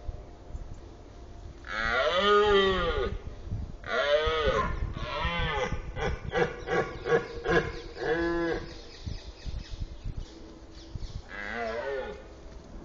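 Red deer stag roaring in the rut. A long roar comes about two seconds in, then another. A quick run of short grunting calls follows, then one more roar, with a last roar near the end.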